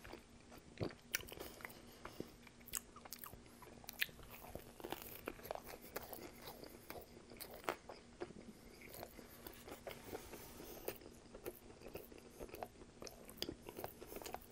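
Close-miked chewing of a mouthful of untoasted tuna sub on herb and cheese bread with pickles and peppers: irregular small crunches and mouth clicks, faint.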